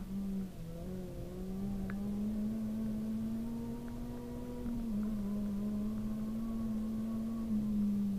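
Honda Civic Type-R rally car's four-cylinder engine from inside the cabin, driven along at a steady pitch that dips briefly about half a second in, steps down slightly near five seconds in, and starts to fall away right at the end. A few faint ticks over the engine.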